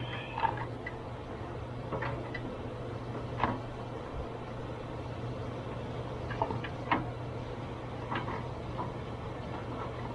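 A new car radiator being worked down into the engine bay: a handful of short knocks and clicks as it bumps against the surrounding parts, the sharpest about three and a half and seven seconds in, over a steady low hum.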